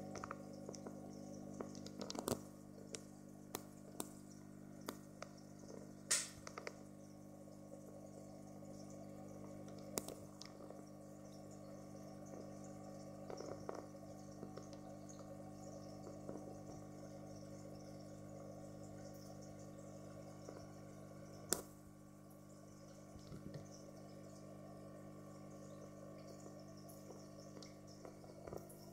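Aquarium internal filter running with a low, steady hum and faint water trickle. A few sharp clicks stand out, the loudest about six seconds in and again a little past twenty seconds.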